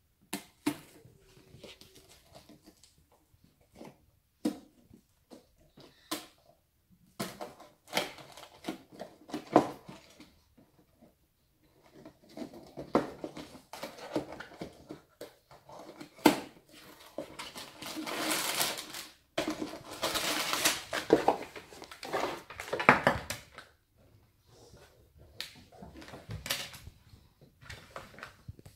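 A LEGO set's cardboard box and plastic parts bags being handled and opened by hand: scattered clicks and taps, with a few seconds of rustling, tearing packaging about two-thirds of the way through.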